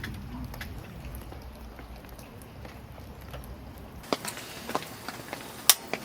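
Rain dripping, the separate drops heard as scattered irregular ticks. About four seconds in the sound changes abruptly, and the drops become sharper and louder, with a few loud single hits.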